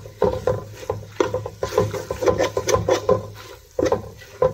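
Metal spoon stirring and scraping thick, sticky semolina halwa around an aluminium pot in quick repeated strokes, with a steady low hum underneath.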